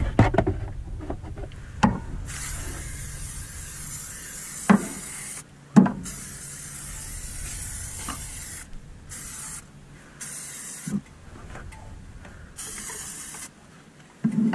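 Aerosol can of Mudslinger plastic protectant spraying onto engine-bay plastics and wiring: a hiss that starts and stops about five times, two sprays of about three seconds, then three short ones. A few knocks sound in between.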